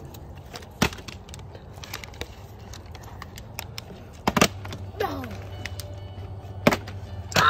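Plastic water bottles landing on a wooden picnic table after being flipped: a few sharp knocks, two close together about four seconds in and another near the end, over background music.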